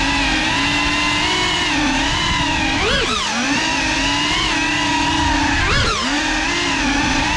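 GEPRC Cinelog 35 cinewhoop's brushless motors and ducted propellers buzzing steadily in flight, the pitch swooping briefly up and back down about three seconds in and again near six seconds.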